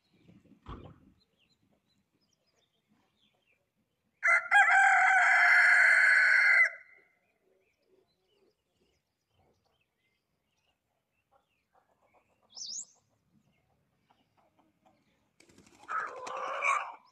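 Rooster crowing once, a long steady call of about two and a half seconds. A short high chirp comes later, then a rougher flurry of sound near the end as the bird takes off over the water.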